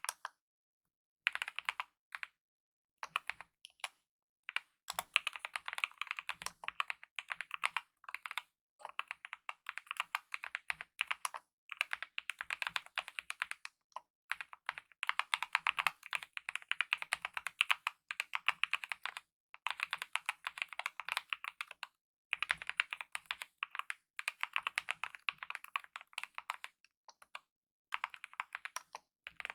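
Typing on a Kemove DK mechanical keyboard with lubed optical red linear switches and DSA-profile keycaps: fast runs of keystrokes broken by brief pauses of about a second.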